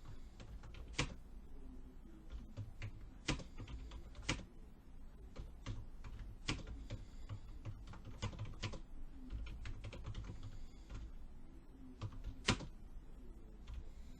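Typing on a computer keyboard: irregular keystroke clicks with a few louder strikes scattered through.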